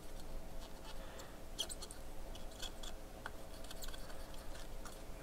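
Cotton swab scrubbing flux residue off freshly soldered joints on a circuit board: faint, irregular scratchy ticks and rubbing, over a faint steady hum.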